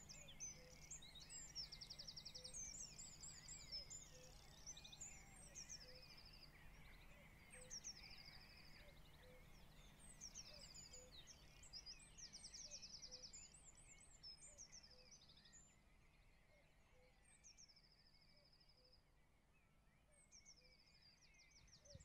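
Faint songbird song in open countryside: short high phrases, each a quick falling note running into a thin trill, repeated every second or two and fading away in the second half.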